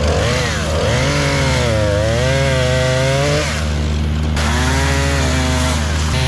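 Brush-cutting machinery running hard: a pitched machine note that sags and recovers again and again as it bites into brush, dropping out briefly just past the middle. Beneath it runs the steady drone of a diesel engine.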